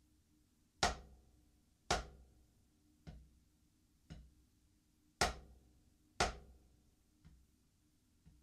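Drumsticks striking a practice pad in a slow repeating pattern, about one stroke a second: two loud strokes, then two soft ones. This is the full stroke, down stroke, tap and up stroke sequence, with the loudness set by how high the stick starts.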